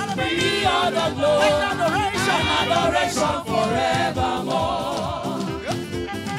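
Gospel choir of women singing a praise song together over a backing band.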